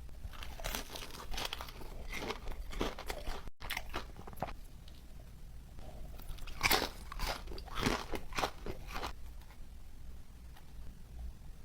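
Close-miked eating: crunchy bites and chewing in clusters of crackly strokes, busiest near the start and again past the middle.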